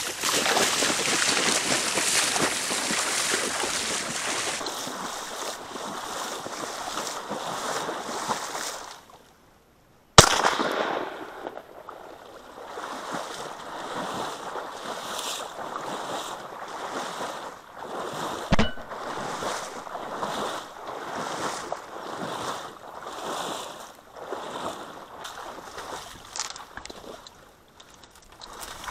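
Steady rushing noise of wind and water that drops out for about a second, then a single sharp, loud crack about ten seconds in, followed by fainter uneven rushing.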